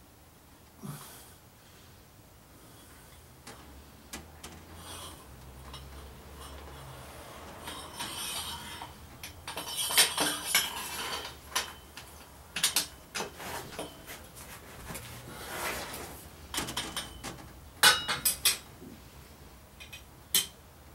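Metal clinking and clattering as steel exhaust pipe sections and tools are handled on a workbench, in scattered knocks and rattles. The loudest clatters come about halfway through and again near the end.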